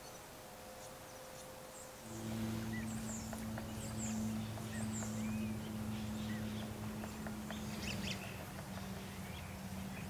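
After about two seconds a steady low hum sets in and becomes the loudest sound. Its pitch drops slightly about eight seconds in. Short high bird chirps are scattered over it.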